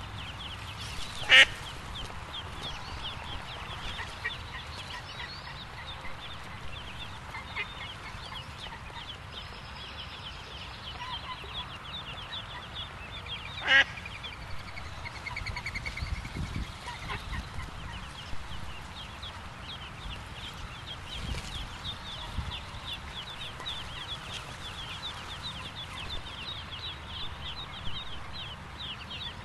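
Mallard ducklings peeping rapidly and continuously, many short high calls overlapping. There are two brief loud sharp sounds, one about a second in and one about halfway through.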